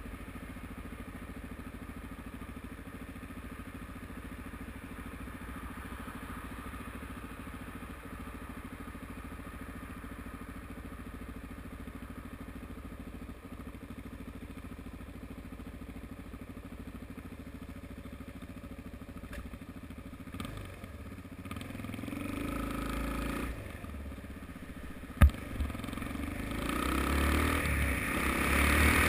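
Suzuki DR-Z single-cylinder four-stroke motorcycle engine idling steadily, then revving as the bike pulls away: the note rises, drops back briefly and rises again, with one sharp click in the middle. Wind rush on the helmet-mounted microphone grows as the bike speeds up near the end.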